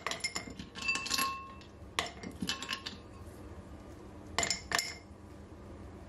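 Ice cubes dropped by hand into a glass jar, each landing with a sharp clink and a short glassy ring. A quick series of clinks comes in the first three seconds, then two more clinks close together near the end.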